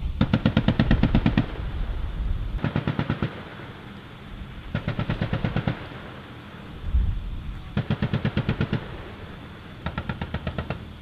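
Vehicle-mounted M2 .50-calibre heavy machine guns firing five short bursts of rapid shots, each about a second long, a second or two apart. A low thump comes just before the fourth burst.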